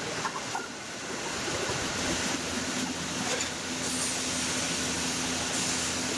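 Car assembly-line machinery: a steady hiss of factory noise, with a low steady hum that sets in about two seconds in and a few light clicks.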